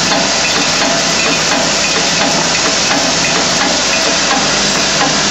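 Nail clip assembly machine running: a steady, dense rattle of many small plastic clips and nails clicking against each other in its vibratory bowl feeders, over a faint steady hum.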